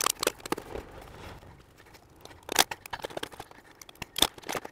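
Sharp clicks and knocks from a Vevor telescopic aluminium ladder being handled, irregular throughout, with two louder clacks about two and a half and about four seconds in.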